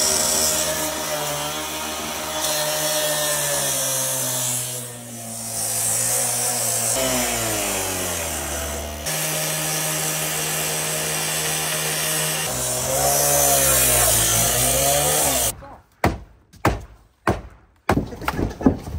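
Petrol-powered cut-off saw running at high speed, its abrasive wheel cutting through the car's sheet-metal roof, the engine pitch dipping and rising with the load across several cuts. About three seconds before the end it stops and a series of sharp thumps on the car roof follows.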